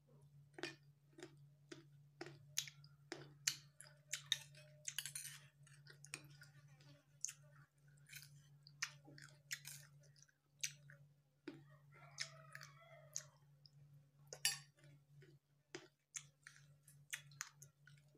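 A person chewing a mouthful of parijoto berry rujak close to the microphone: sharp mouth clicks at an uneven pace, about two a second, over a faint steady hum.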